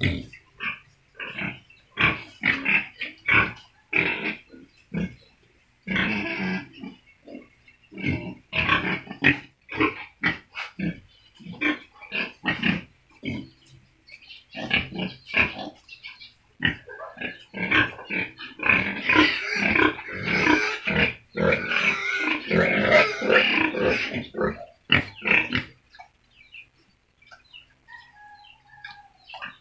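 Several young domestic pigs grunting, many short calls one after another, busiest and loudest about two-thirds of the way through, where the calls overlap, then thinning out near the end.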